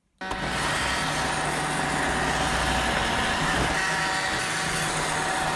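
A loud, steady motor-like rushing noise with a constant hum and whine cuts in suddenly just after the start and runs on evenly.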